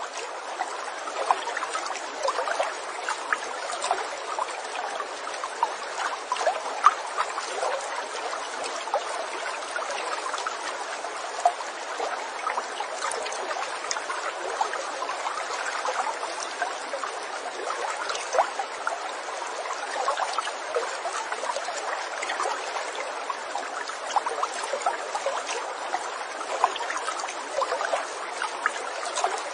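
Running water, a small stream babbling steadily, with many small sharp ticks and plops through it.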